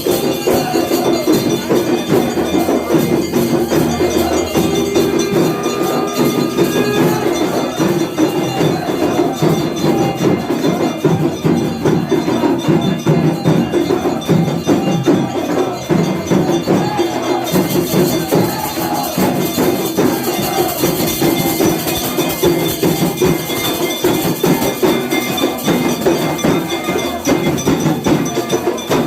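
Aarti bells and percussion playing, with clanging strikes over a sustained ringing tone.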